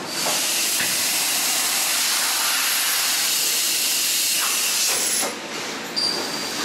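Steady hiss of a high-pressure spray inside a horizontal machining center, cutting off about five seconds in; a sharp click follows about a second later.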